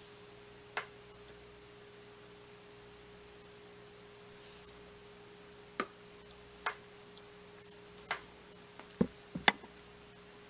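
Scattered light taps and clicks of small objects handled on a hard surface: one about a second in, then a run of about six in the second half, the loudest near the end. A steady faint hum runs underneath.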